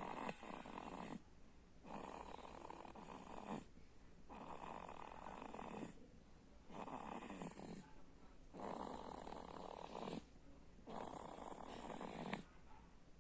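Snoring: a rasping snore on each breath, one about every two seconds, each lasting a little over a second with a short pause between.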